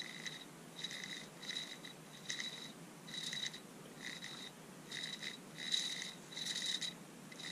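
Small planetary gearbox of a Black & Decker cordless screwdriver turned by hand with fresh oil on its gears, giving a faint, short squeak just over once a second.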